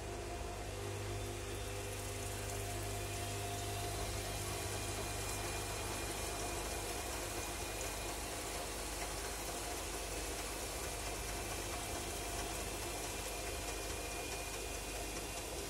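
Bosch Classixx 6 front-loading washing machine running with a pillow in the drum: water sloshing as the drum turns, over a steady low hum.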